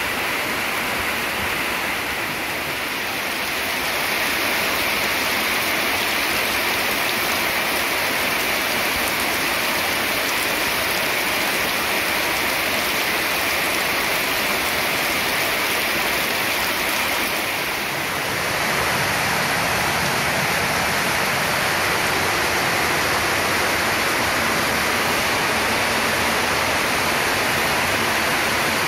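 Heavy rain pouring steadily onto wet ground and foliage, a dense continuous hiss. Its tone shifts slightly about 18 seconds in.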